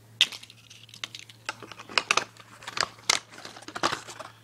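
Die-cast toy car packaging being pulled open by hand: plastic and cardboard crinkling, with irregular sharp crackles throughout.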